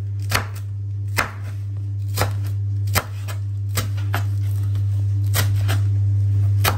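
Chef's knife chopping fresh coriander on a wooden cutting board, the blade knocking the board in single strokes about once a second. A steady low hum runs underneath.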